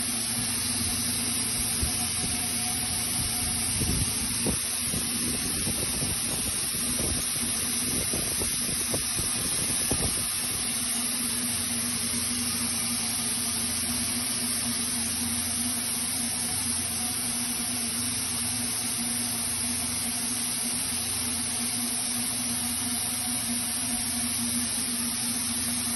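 Industrial thermoforming machine running: a steady hiss over a constant hum, with a run of short knocks and rattles between about four and ten seconds in.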